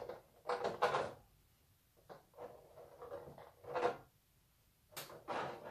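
Plastic packaging and small accessories being handled: a few short rustles and clatters, the plainest about half a second in, just before four seconds, and about five seconds in.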